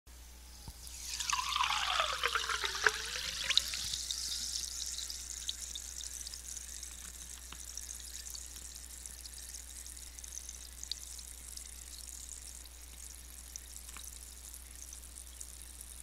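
Seltzer (carbonated water) poured into a glass, splashing loudly for about three seconds with a pitch that falls and then rises. Then the bubbles fizz with a steady high hiss and small pops, slowly fading.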